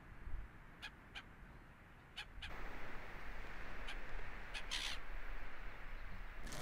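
Quiet outdoor ambience: a low steady rumble with a few short, sharp chirps or clicks scattered irregularly through it, and a soft hiss that grows slightly louder about two and a half seconds in.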